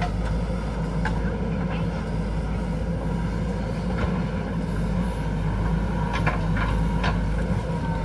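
JCB backhoe loader's diesel engine running steadily under work, with a few sharp knocks and clanks scattered through it.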